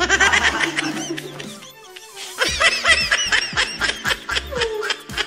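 High-pitched giggling laughter in two bursts, the second starting about two and a half seconds in, over steady background music with a beat.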